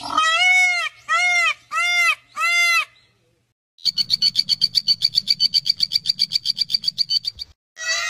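Animal calls: four short calls in quick succession, each rising and falling in pitch. After a brief gap comes a rapid pulsing trill of about nine pulses a second with a high, steady tone, lasting nearly four seconds.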